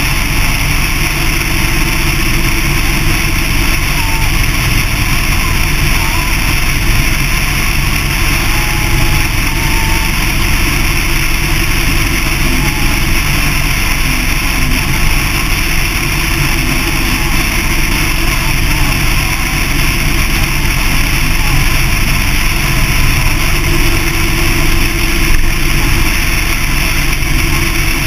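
Motorcycle cruising at steady highway speed: a constant loud rush of wind noise with the engine's drone underneath.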